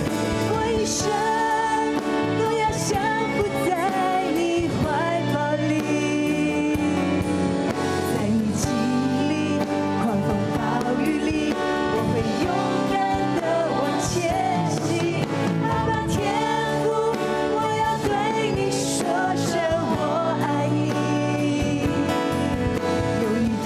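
A woman singing a Mandarin Christian worship song live into a microphone, her melody held and bending over a steady instrumental accompaniment.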